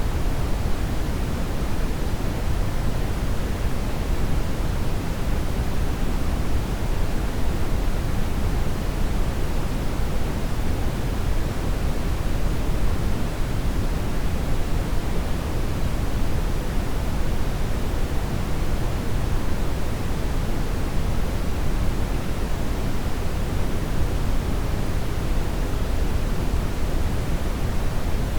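Steady brown noise: an even, unchanging deep hiss, heaviest in the low end.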